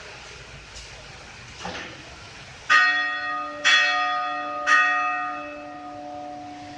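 Church bell struck three times, about a second apart, each stroke ringing on and fading slowly, with a low hum lingering after the last. A couple of fainter knocks come before the first stroke.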